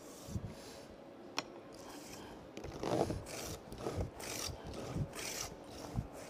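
Small Japanese hand plane (kanna) shaving a thin hinoki strip: about four quick shaving strokes in the second half, with light knocks of the wooden plane body between them.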